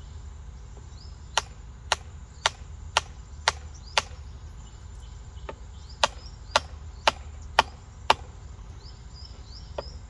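Sharp wooden knocks as a sharpened bamboo sap tube is driven into a date palm trunk with the butt of a dao's handle, about two strokes a second. A run of six knocks comes about a second in, then a pause, five more, and another near the end.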